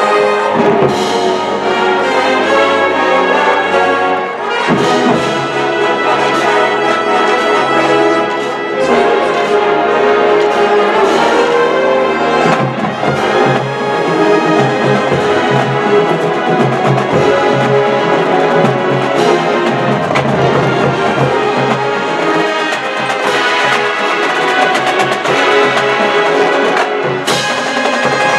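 College marching band playing a brass-heavy piece, with trumpets and trombones to the fore.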